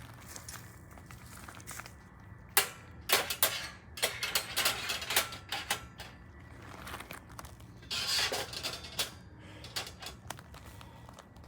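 Irregular handling noises: sharp clicks and light knocks with several short bursts of rustling, the loudest clusters a few seconds in and again about eight seconds in.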